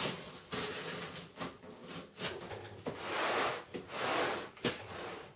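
Packing tape being picked at and peeled off a cardboard shipping box, with scratchy rasps, small clicks and cardboard handling noises; two longer rasping pulls come about three and four seconds in.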